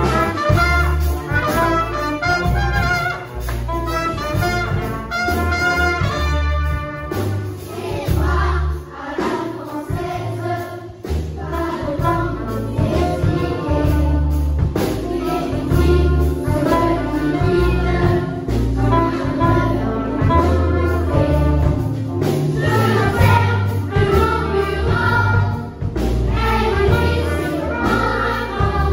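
Amateur jazz big band of saxophones, trumpets and trombones playing, with a children's choir singing along.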